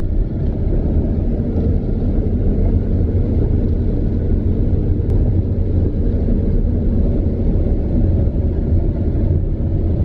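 Combine harvester cutting corn, heard from inside the cab: a steady low rumble of the engine and threshing machinery.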